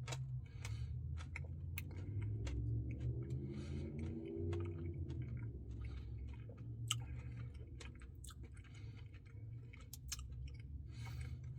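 A person eating a Blizzard ice cream treat close to the microphone: chewing with soft wet mouth sounds and many small clicks, over a steady low hum.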